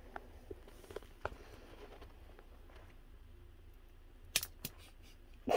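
Lop-eared rabbit nibbling and chewing banana cake and lettuce off a paper plate: faint scattered crunchy clicks, with two sharper clicks about four seconds in and a brief louder rustle at the very end.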